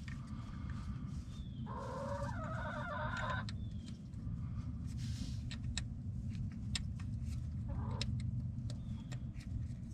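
A chicken calls for about two seconds, with a wavering pitch, and gives a shorter call near the end, over a steady low hum and scattered faint clicks.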